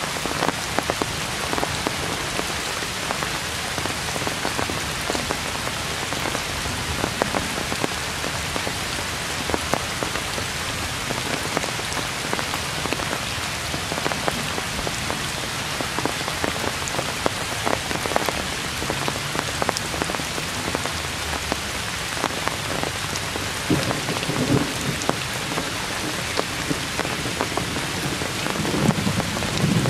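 Heavy rain falling on grass and trees: a steady hiss full of single drop hits, with a low rumble about three quarters of the way through and again near the end.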